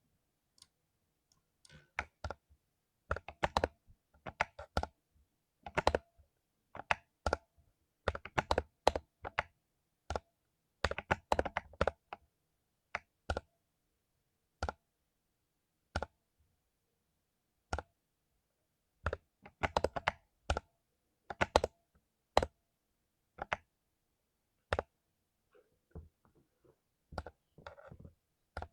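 Typing on a mechanical keyboard with lubed Cherry MX Silver linear switches: uneven runs of quick key strokes broken by short pauses and single presses.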